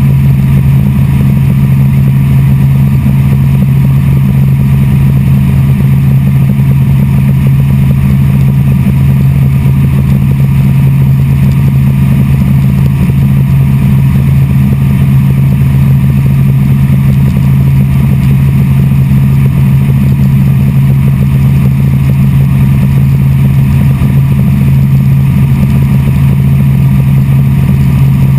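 Helicopter in flight, heard from inside the cabin: the engine and rotor make a loud, steady drone with a strong low hum that does not change.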